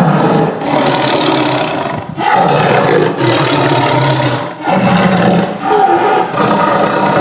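Tiger roaring: a run of loud, deep roars, about six in a row with brief breaks between them.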